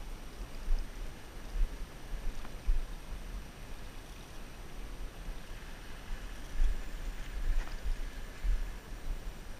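Wind buffeting an action camera's microphone in uneven gusts, heard as a low rumble, with a few faint ticks over it.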